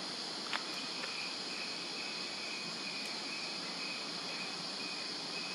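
Steady high-pitched chorus of insects, with a thin, broken whistling tone joining about half a second in. A single sharp click comes just as the tone begins.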